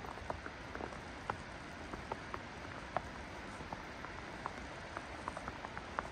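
Water dripping and pattering irregularly around snow-laden trees, a few distinct drops a second over a steady soft hiss.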